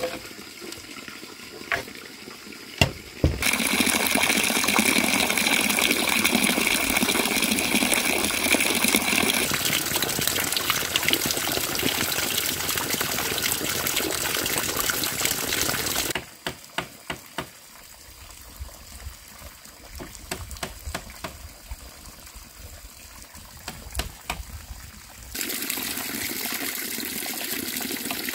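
Water running and splashing in long stretches that start and stop abruptly: one about three seconds in, one near the end. Between them is a quieter stretch with scattered short knocks.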